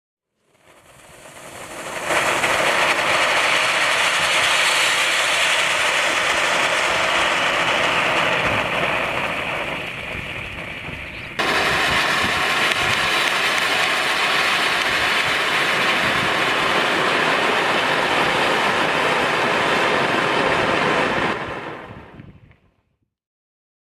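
Small ground-spark fountain firework burning with a loud, steady hiss and crackle. It builds up over the first two seconds and sags a little before surging back abruptly about eleven seconds in, likely as a new stage of the fountain takes over. It dies away near the end.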